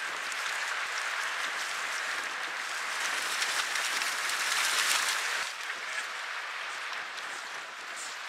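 Water splashing as a retriever dog wades and swims through choppy lake water carrying a duck, over a steady hiss of wind and waves. The splashing is loudest from about three to five seconds in, then eases off.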